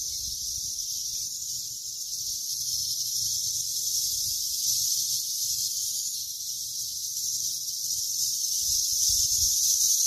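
Cicadas buzzing in a steady, high-pitched chorus.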